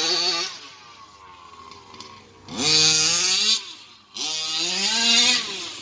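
Small two-stroke engine of a gas-powered RC car revving hard twice, the pitch climbing sharply in each burst and holding about a second before dropping back, with the throttle opened so hard that a tire balloons.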